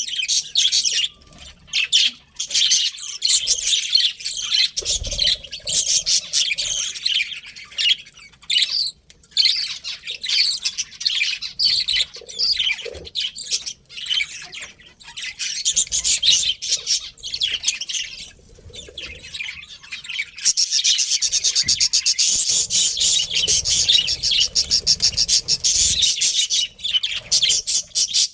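A flock of budgerigars chirping and chattering: many quick, overlapping high chirps. The chatter becomes denser and more constant about two-thirds of the way through.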